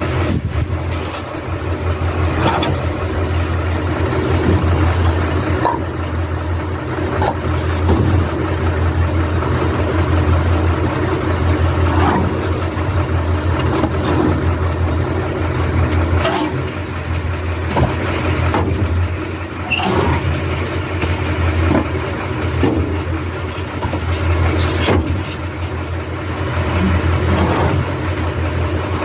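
A motor vehicle engine idling steadily, with scattered knocks and clacks over it.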